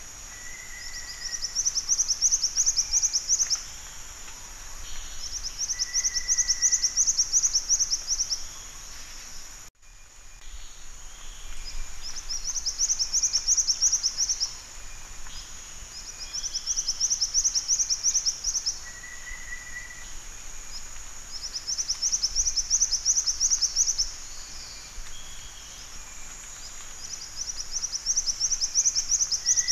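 Black-winged flycatcher-shrike calling: a high, rapid trill of about two seconds, repeated every four seconds or so, over a steady high insect-like hiss. A short, lower whistled note falls between some of the trills, and the sound cuts out for a moment about ten seconds in.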